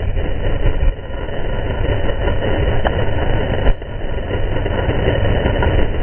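Wind rushing over a helmet camera's microphone while skiing downhill, with the skis scraping the snow through turns. A short knock comes about three and a half seconds in.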